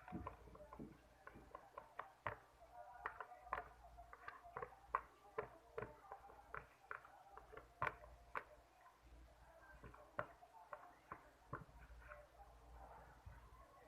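Glue-and-detergent slime being stirred in a container, the stirrer scraping and tapping in an uneven run of soft clicks and squelches, two or three a second.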